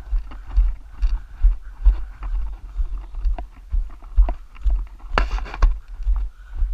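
Footsteps on a dirt and gravel road at a steady walking pace, about two steps a second, each step also thumping through the body-worn camera. A short, louder scrape about five seconds in.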